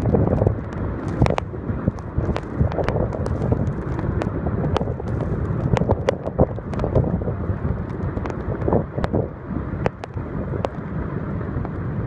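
Snow avalanche pouring down the Gega waterfall together with its water: a steady, heavy rushing rumble, with frequent sharp clicks and wind on the microphone.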